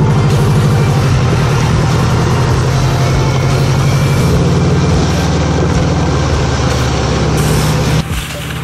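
Subaru Impreza's flat-four engine running steadily close ahead while it tows a sled, over the steady hiss of the sled sliding on wet asphalt. The level drops suddenly near the end.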